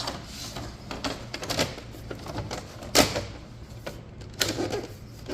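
Cover being fitted and snapped back onto a Dell OptiPlex 7460 all-in-one PC: a series of handling clicks and knocks, the loudest a sharp click about three seconds in as it latches.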